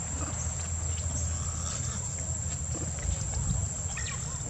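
Outdoor ambience: a steady low rumble under a continuous high-pitched insect whine, with a few faint short high sounds near the end.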